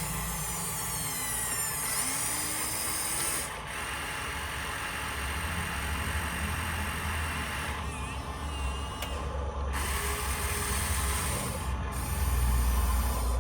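Small electric motors and plastic gearboxes of a radio-controlled toy construction vehicle whirring, starting and stopping several times. The pitch falls as the motors spin down between moves.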